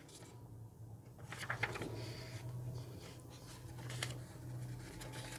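Faint rustling and soft handling noises of paper as the front pages of a paperback textbook are turned, over a steady low hum.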